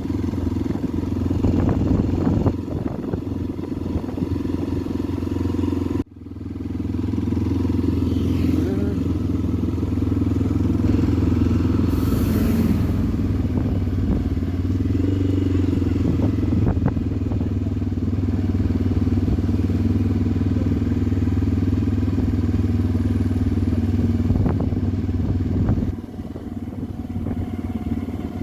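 Motorcycle engine running steadily while riding, with a brief dropout about six seconds in.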